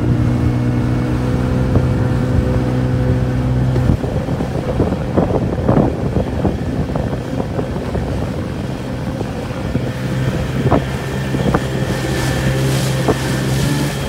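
Outboard motor of an inflatable boat running steadily at speed, easing off slightly about four seconds in. The hull slaps through choppy water now and then, with wind on the microphone.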